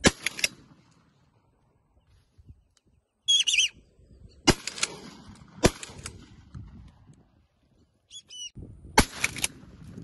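Shotgun shots fired at birds overhead: a quick volley of reports at the start, two single shots in the middle and another quick pair near the end. Short, high bird calls come twice between the shots.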